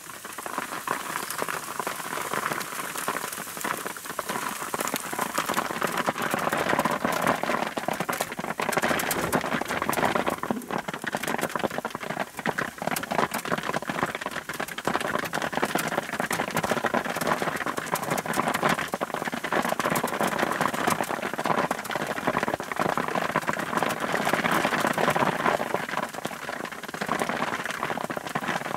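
Steady rain falling: a dense, even hiss with many small drop ticks throughout.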